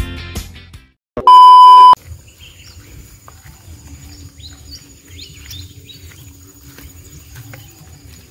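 Music fading out, then a loud steady electronic beep lasting under a second, about a second in. After it, outdoor ambience: birds chirping, a steady high-pitched insect drone and a low rumble.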